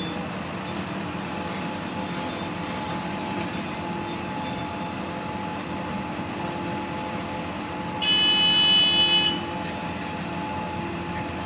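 Mobile crane engine running steadily. About eight seconds in, a horn sounds once, loud and high-pitched, for just over a second.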